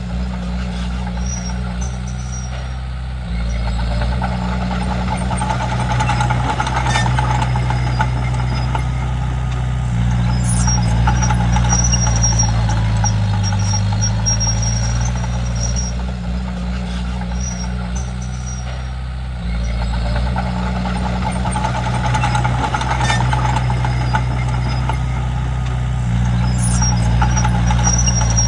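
Komatsu D31P bulldozer's diesel engine running steadily under working load. Its note shifts and the level steps up about three seconds in, again near the middle, and again later on.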